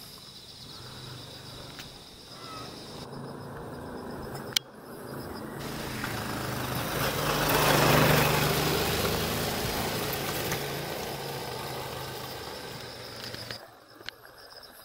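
A car passing on the street: a broad engine and tyre noise that swells to its loudest about halfway through, then fades away. Crickets chirp steadily underneath, and there is a single sharp click a little before the car comes close.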